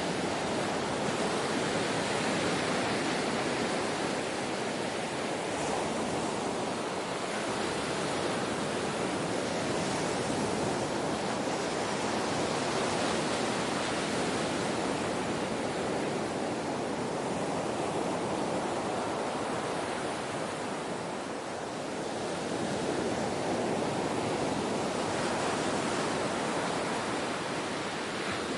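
Ocean surf washing in steadily, a continuous rushing of waves that swells and eases slowly.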